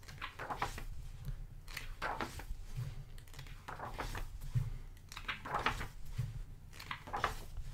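Pages of a thick hardcover art book being turned one after another, each turn a short paper swish and rustle, about five turns a second or so apart.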